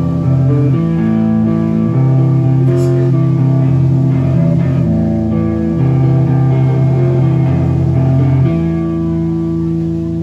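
Live rock band playing, electric guitars and bass guitar holding slow, sustained chords that change every second or two.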